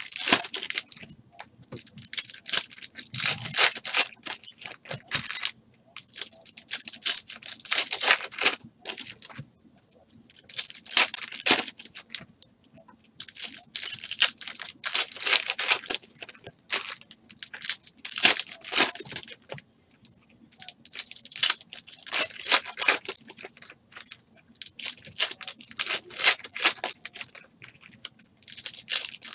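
Foil trading-card pack wrappers being torn open by hand, and the cards' clear plastic inner sleeve crinkling. It comes in bursts of crackling a few seconds long with short pauses between.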